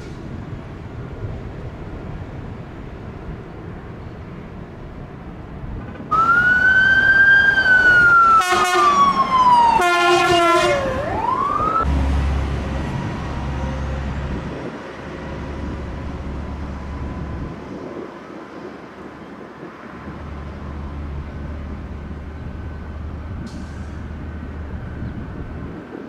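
An emergency vehicle siren starts suddenly about six seconds in: a long wail falling slowly in pitch, broken twice by bursts of rapid yelping, then a quick swoop down and back up before it stops. After it, the LAPD Eurocopter helicopter overhead gives a steady low rotor rumble with a faint high whine.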